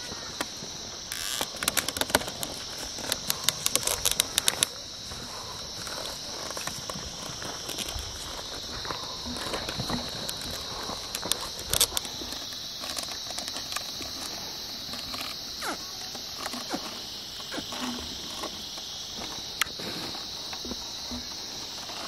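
Steady high-pitched insect chorus throughout, with a dense run of sharp clicks and rustles over the first few seconds and scattered faint ticks and rustles after.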